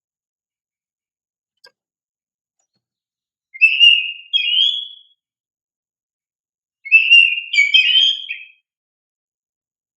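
Oriental magpie-robin (kacer) singing two short bursts of rapid, clear whistled notes, the first about three and a half seconds in and the second about seven seconds in, with silence between them.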